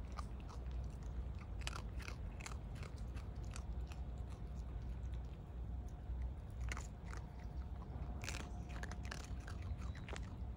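Raccoon dogs crunching and chewing dry kibble pellets, a quick irregular run of crunchy bites, over a steady low rumble.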